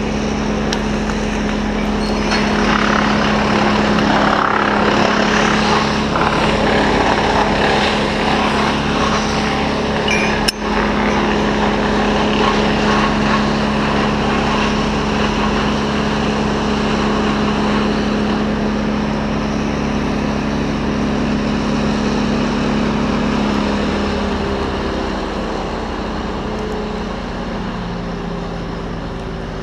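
An engine running steadily at high revs, with a single sharp click about ten seconds in; its pitch drops and it slows near the end.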